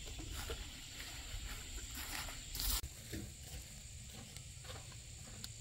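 Irregular rustling and crackling of watermelon vines, leaves and plastic mulch as a melon is picked and handled, with one louder crackle about halfway through. A steady low rumble and a steady high hum run underneath.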